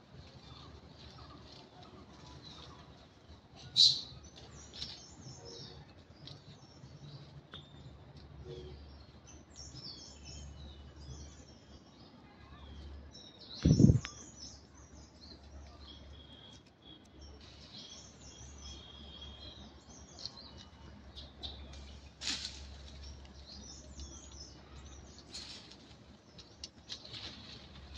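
Small birds chirping repeatedly in the surrounding trees, with a few sharp clicks and one loud, dull low thump about halfway through.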